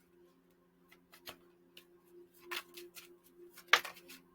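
Faint scattered clicks and taps, with one sharper click near the end, over a low steady hum.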